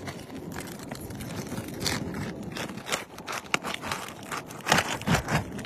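Asphalt roof shingles being pried loose with a roof snake: irregular crackling, scraping and tearing as the sealed tabs are broken free, with a few sharper cracks about two seconds in and near the end.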